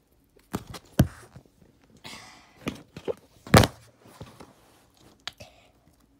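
Handling noise: a string of knocks and thuds, the loudest about three and a half seconds in, with a short rustle around two seconds, as the phone is picked up and moved and the plastic squeeze-candy tube is handled.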